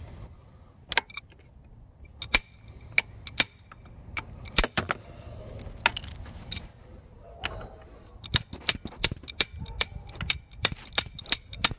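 Sharp metallic clicks and clinks of a socket wrench working the handlebar clamp bolts. They are scattered at first, then come about three a second for the last few seconds.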